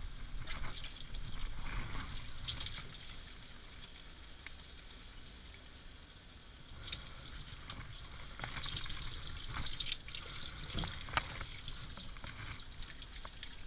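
Water trickling and splashing from a bathing hose nozzle onto a grooming tub's mat as shampoo is worked in, over a steady low hum. It eases off for a few seconds in the middle, then splashes more again, with a few sharp clicks.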